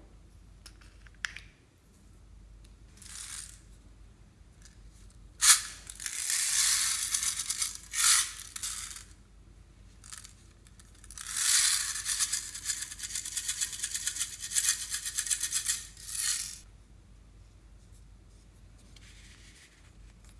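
Small plastic containers clicking open, then small beads poured out into a glass dish, rattling in two pours of several seconds each, the second the longer.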